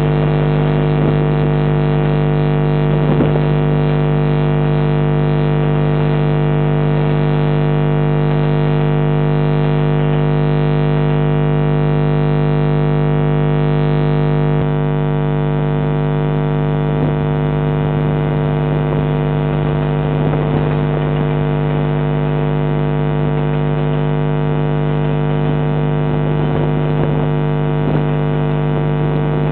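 Steady electrical mains hum with a stack of buzzing overtones, strongest low down, unchanging in pitch; its texture shifts slightly about halfway through.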